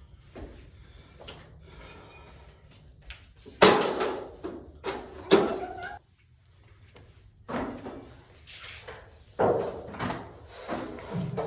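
Irregular heavy knocks and thuds of wood from framing lumber being handled and fitted: a cluster of sharp bangs a few seconds in, a lull, then more knocks near the end.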